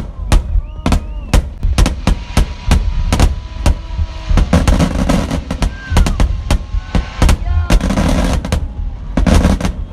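Fireworks going off: a rapid, irregular string of sharp bangs, several a second, with a few faint whistling tones among them.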